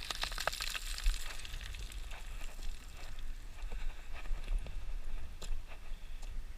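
Wind rumbling on the microphone, with scattered light clicks and crackles throughout.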